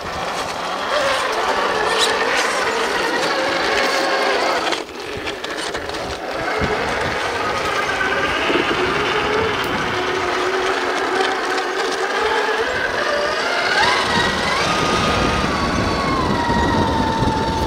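Electric motor and gear drivetrain of a 1/10-scale Traxxas TRX-4 RC crawler whining as it climbs rock. The whine rises and falls in pitch with the throttle and jumps sharply higher in the last few seconds.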